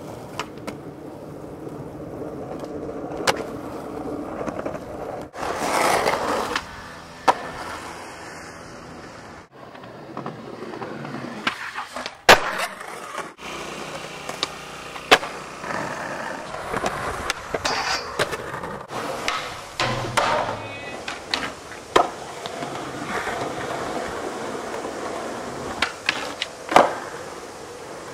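Skateboard wheels rolling over concrete, with sharp clacks from boards popping and landing several times. The sound breaks off abruptly at cuts between clips.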